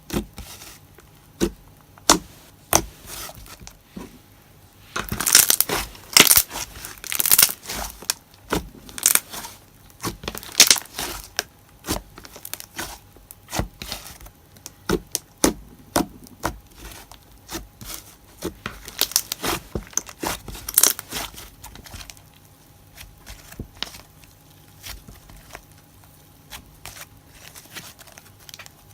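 Glossy slime being squeezed and worked by hand, giving off irregular popping and clicking bubble sounds, with busier runs of pops twice.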